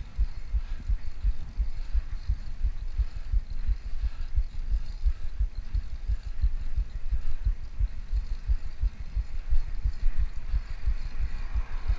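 Wind buffeting the microphone of a GoPro on a moving bicycle, an uneven low rumble of thumps.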